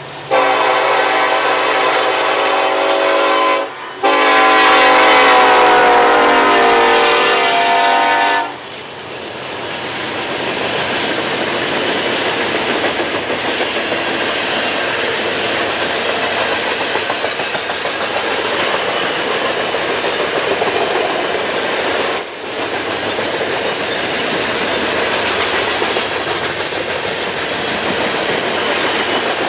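Norfolk Southern EMD SD70ACe diesel locomotive sounding two long horn blasts, the second one dropping in pitch as the locomotive passes. Then comes the steady rumble and clickety-clack of coal hopper cars rolling by on the rails.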